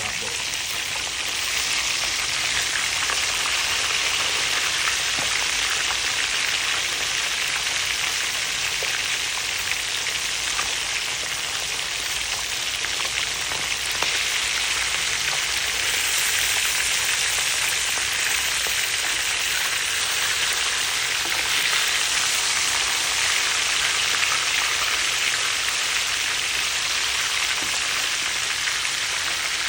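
Whole seasoned snapper frying in hot oil: a steady, dense sizzle, a little louder from about two seconds in.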